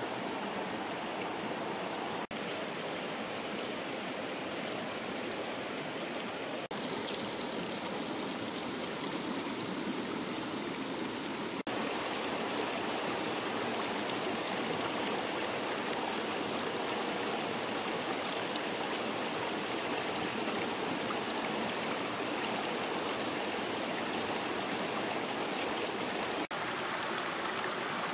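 Steady rushing of a river flowing over rocks, dipping briefly a few times.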